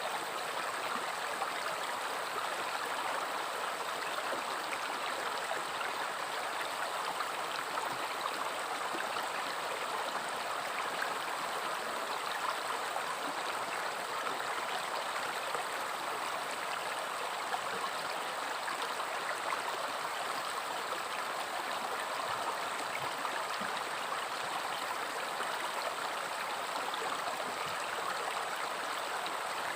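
River water flowing and gurgling over rocks in a steady, unbroken rush.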